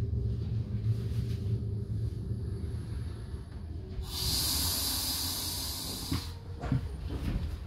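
Regional passenger train running, heard from inside: a steady low rumble, with a loud hiss for about two seconds just past the middle, then a few knocks near the end.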